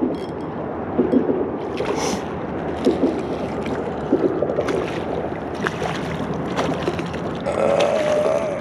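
Water sloshing with wind on the microphone and scattered small clicks and splashes while a hooked sheepshead is brought in to be landed.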